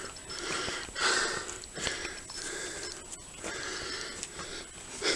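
A person breathing hard close to the microphone: a steady run of noisy breaths in and out, about one a second, from the exertion of climbing a ladder.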